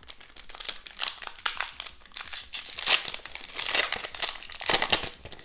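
Shiny foil wrapper of a Pokémon booster pack being torn open and crinkled by hand: a dense run of irregular crackles, louder about three seconds in and again near the end.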